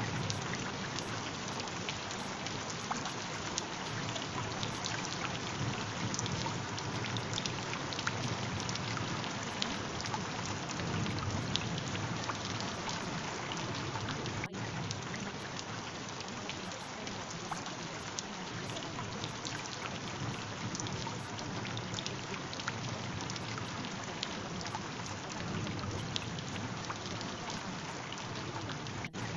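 Steady rain, an even hiss dotted with many small drop ticks. It briefly cuts out about halfway through.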